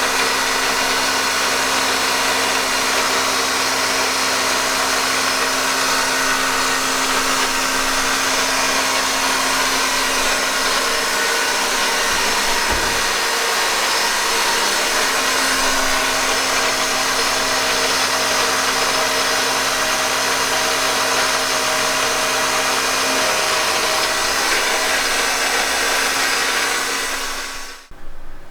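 Milling machine spindle spinning a 1/4-inch end mill at about 3,800 RPM, taking a light power-fed cut through a metal plate to machine cooling fins: a steady whine over cutting noise that cuts off suddenly near the end.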